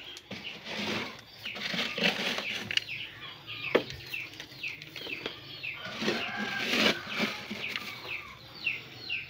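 Dry rice-husk bedding rustling and pouring as a plastic cat-litter scoop digs into it and tips it out, in two louder spells. Behind it, birds give short, high, downward-sliding chirps over and over, a few each second.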